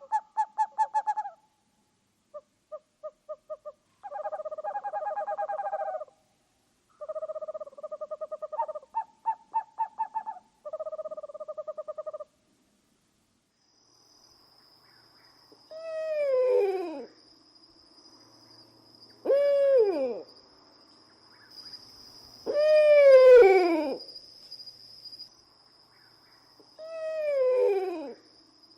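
Owl calls. First come several short, rapidly pulsed trills. After a pause, four drawn-out calls follow, each falling steeply in pitch, with a faint steady high whine underneath.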